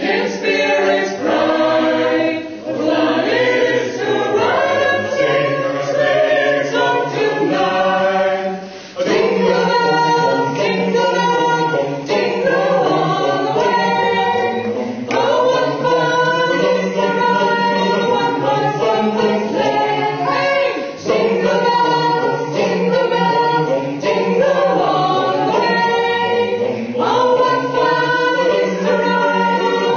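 Choir singing a cappella in several voice parts, with a short pause between phrases about nine seconds in.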